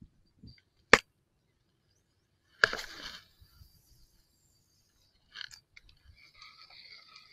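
Spinning rod and reel handled through a cast: a sharp click about a second in, then a short rush of line as the lure is cast a couple of seconds later. A few small clicks follow, and the reel's whir builds near the end as the retrieve begins.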